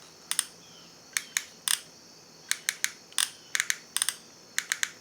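Sharp, irregular clicking from a NEWACALOX soldering gun's trigger-driven solder-feed mechanism as the trigger is pulled over and over to push solder wire out to the tip. Some clicks come singly and some in quick runs of two to four.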